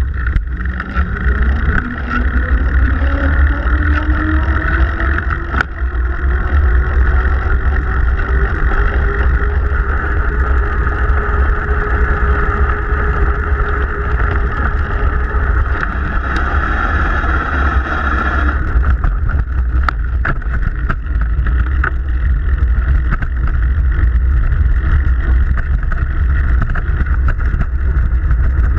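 Bicycle riding on wet pavement, heard from a camera mounted low by the chain: steady wind rumble on the microphone with tyre hiss and a few drivetrain clicks. A tone rises slowly in pitch over the first half, and a higher hiss drops away about two-thirds through.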